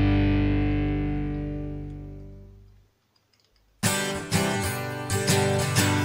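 Background guitar music: a held chord fades out over the first few seconds, there is a brief silence, and plucked guitar notes start up again just before the four-second mark.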